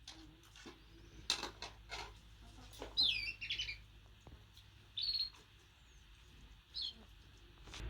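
Small bird chirping: a few short high calls, one falling run about three seconds in and single calls near five and seven seconds. A few light clicks or knocks come in the first three seconds.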